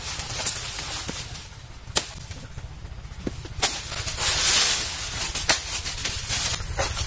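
A machete chopping into a banana plant's trunk to fell it: about five sharp strikes, spaced a second or more apart, with a louder rustling noise about four seconds in.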